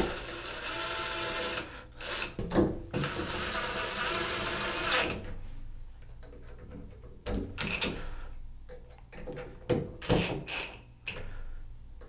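Cordless drill running in two spells, about a second and a half and then about two seconds, driving the screws that hold the shower valve's plate back in. After that, only a few scattered light clicks and knocks.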